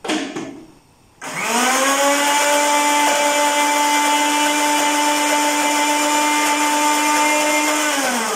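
Countertop electric blender with a liquid-filled jar: after a short knock at the start, the motor starts about a second in, quickly rises to speed and runs at a steady pitch, then is switched off near the end and spins down with a falling pitch.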